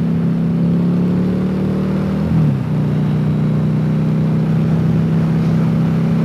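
Harley-Davidson motorcycle engine running under way at a steady pace, its pitch briefly wavering and dropping about two and a half seconds in, then holding steady again.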